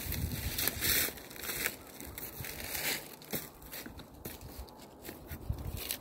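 Footsteps crunching irregularly over dry leaves, dry grass and crusted snow among loose rocks, loudest in the first second or two.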